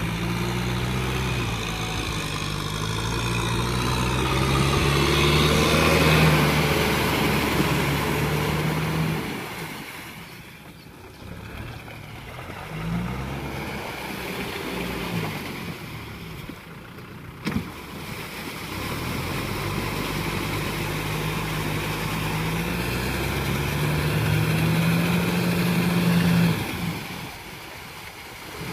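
Diesel tractor engines revving and labouring under load in deep mud, the pitch rising and falling as the throttle is worked. First comes the Kubota M6040SU struggling through a muddy puddle, then a tractor driving a rotary tiller through a flooded paddy. The engine sound drops off twice in the middle, with a sharp click at one break.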